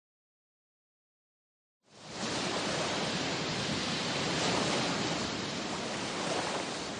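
Silence for about two seconds, then the steady wash of sea surf fades in and holds at an even level.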